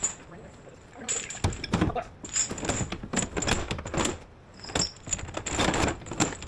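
Heavy steel tow chain clanking and rattling as it is handled and laid into a truck's storage compartment, a run of irregular metallic clanks.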